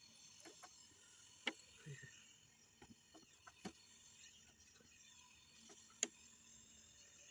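Near silence broken by a handful of faint, sharp clicks and taps. The two clearest come about a second and a half in and about six seconds in.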